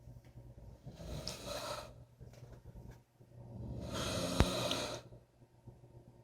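A person snoring: rough, noisy breaths repeating about every two and a half seconds, the loudest one about four seconds in.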